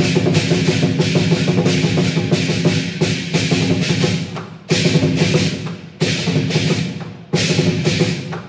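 Lion dance percussion: a large Chinese drum beaten in rapid strokes under clashing cymbals and a ringing gong. The ensemble eases back and then crashes in loud again, once about halfway through and once near the end.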